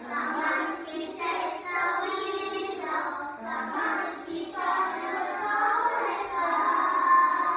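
A class of young children singing a song together during a singing game.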